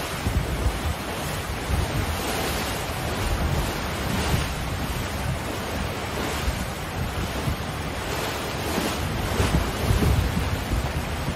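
Wind buffeting the microphone over the rush of open-sea waves around a sailing yacht under way: a steady hiss with gusty low rumble and a few louder swells of wash.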